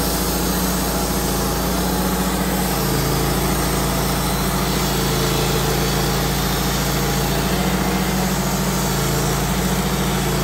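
Wood-Mizer LT15 portable band sawmill's gasoline engine running steadily, with a slight change in its pitch about three seconds in.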